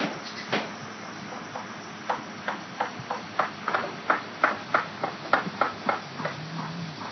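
Hammer blows on a construction site: a quick series of sharp knocks, about three a second, from about two seconds in, over a steady background hiss.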